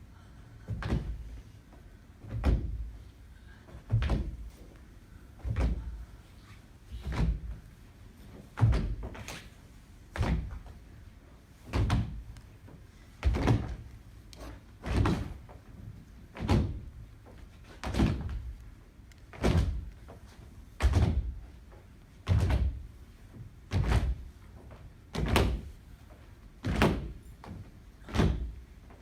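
Heavy low thuds in a slow, even rhythm, a double hit about every one and a half seconds.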